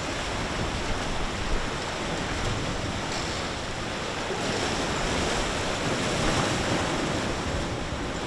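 Choppy sea rushing and splashing along a sailboat's hull under sail in about 22 knots of wind, with wind buffeting the microphone. The rush grows a little louder past the middle.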